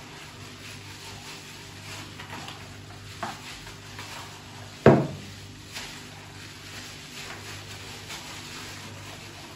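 Gloved hands kneading and squeezing chunks of marinated mutton in a bowl, a soft wet rustling of plastic gloves and meat. A light knock a little after three seconds and a sharp thump about five seconds in, over a steady low hum.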